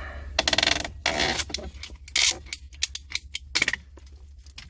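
Hand pipe cutter being worked on a 1/2-inch PVC water pipe, clicking in several short bursts as it cuts through.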